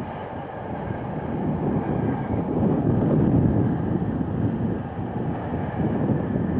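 Wind buffeting the camcorder's microphone: an irregular low rumbling that swells and fades.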